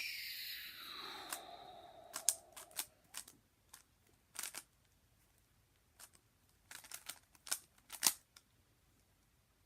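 Plastic Zcube M speed cube being turned: irregular sharp clicks and clacks of the layers snapping round. A swishing sound falling in pitch runs through the first two seconds or so.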